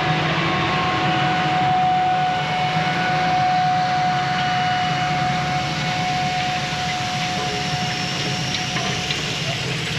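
Case IH Steiger 540 CVX four-wheel-drive tractor's diesel engine running steadily as it pulls an air seed cart and air drill past while seeding, with a steady whine through most of it.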